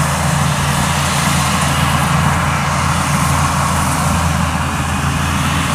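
Kubota DC-70 Pro rice combine harvester running steadily while cutting rice: a constant engine drone with an even rushing noise over it.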